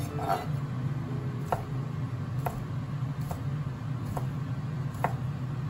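Kitchen knife slicing through a sausage and knocking on a wooden cutting board, about once a second, over a steady low hum.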